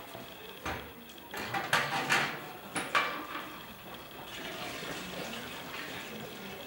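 Several sharp knocks and clinks of kitchenware being handled, clustered between about one and three seconds in, over a steady watery wash of noise.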